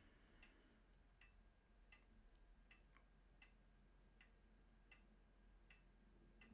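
Near silence: room tone with faint, evenly spaced ticks about every three-quarters of a second.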